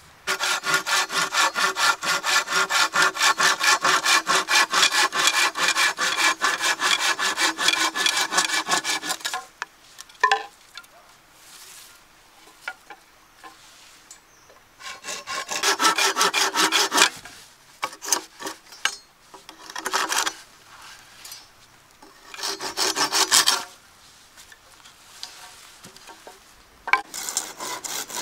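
Bamboo being sawn by hand, in fast, even back-and-forth strokes for about nine seconds, then in several shorter bouts with pauses between.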